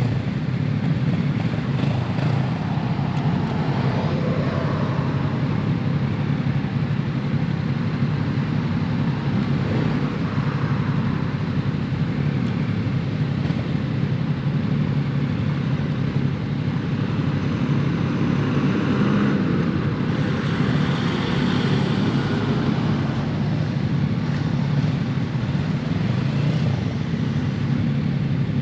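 2022 Yamaha MT-07's parallel-twin engine running through a full Akrapovic exhaust while riding, held at a fairly steady pace without big revs, with wind noise on the helmet-cam microphone.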